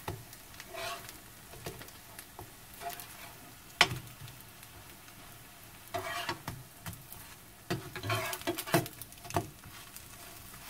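Battered lotus root pancakes sizzling in oil in a nonstick frying pan, while a metal slotted spatula scrapes and taps against the pan as they are flipped. A sharp clack about four seconds in is the loudest sound.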